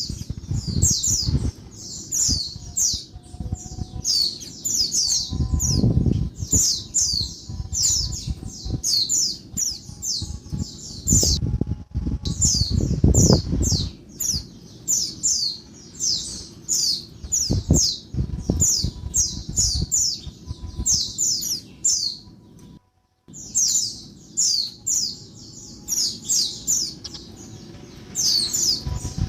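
Female white-eye (pleci) calling noisily: rapid runs of short, high, downward-sweeping notes in close bursts. Underneath there is a low rumbling noise that swells twice, and the sound drops out briefly about two-thirds of the way through.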